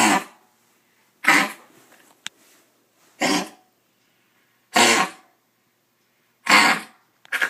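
Dog with kennel cough coughing: a run of about six short, harsh coughs, spaced a second or two apart.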